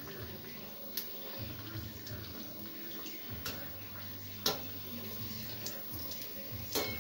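Rice-flour and jaggery batter fritter sizzling and bubbling in hot oil in a kadai, a steady frying hiss. A few sharp clicks break through it, the wire spider strainer knocking against the pan.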